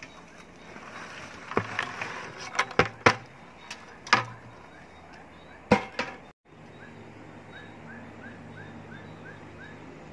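Loose potting medium pouring out of a plastic bucket into a pot with a soft rustle, followed by several sharp knocks as the bucket is handled against the pot. After a cut there is a low steady hum with a run of about eight short chirps, roughly three a second.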